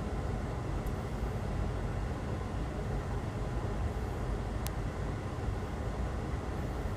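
Steady low rumbling background noise, like a fan or ventilation running, with one faint sharp tick about four and a half seconds in.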